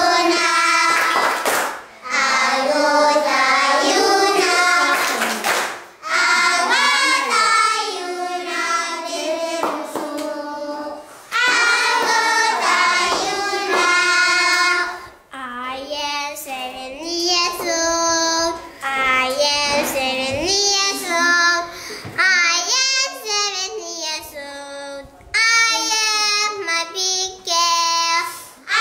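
A group of young schoolchildren singing a song together, phrase by phrase with short breaks in between.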